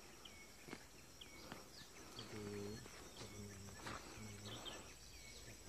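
Faint tropical forest sound: a steady high insect drone with scattered short bird chirps. From about two seconds in, a run of four low, level hoots sounds at intervals of under a second.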